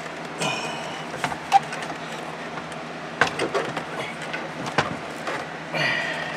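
Plastic dashboard panels knocking and clicking as they are handled and pushed into place in the dash opening. Plastic squeaks and scrapes against plastic twice, once near the start and once near the end, over a steady low hum.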